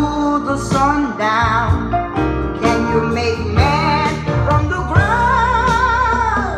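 A song with a singing voice over a band, played from a vinyl record on a Kenwood KP-9010 direct-drive turntable. Near the end the singer holds one long note with vibrato.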